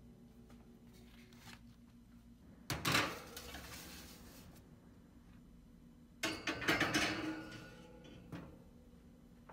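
Metal baking tray sliding in onto a wire oven rack with a scraping clatter, then about three seconds later a bowl of hot water set down and pushed in on the rack below, a second clatter.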